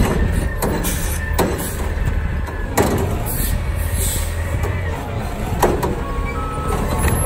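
Heil front-loader garbage truck's diesel engine running steadily, with four sharp metal clanks and bangs from its body and container.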